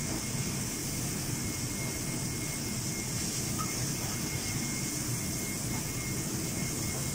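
Steady mechanical roar of commercial kitchen ventilation and equipment running, with a faint steady high-pitched whine.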